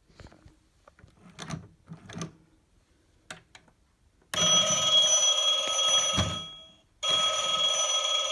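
Gemmy animated vintage telephone prop playing its recorded bell ring through its small speaker: one ring of about two seconds starting about four seconds in, a short pause, then a second ring near the end. Before the rings there are a few faint clicks and knocks.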